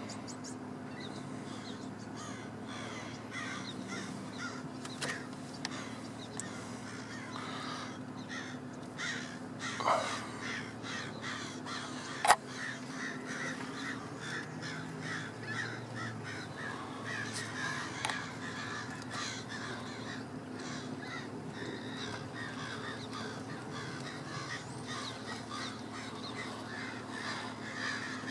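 A flock of blackbirds chattering and calling continuously, many short overlapping calls, with one sharp click about twelve seconds in.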